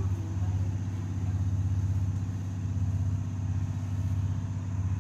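Domestic cat purring close to the microphone: a steady low rumble that swells and fades with each breath, about once a second.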